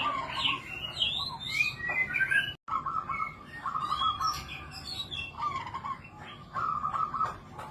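Zebra doves giving their trilled, stuttering cooing in repeated short phrases, mixed with quick high chirps from other small birds. The sound cuts out completely for a split second about two and a half seconds in.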